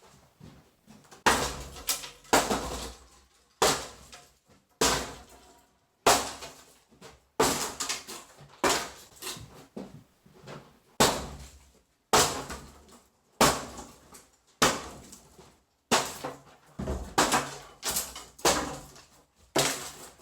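Demolition work: about twenty hard, sharp strikes, roughly one a second, each followed by a brief clatter of breaking material, as a wall is knocked out.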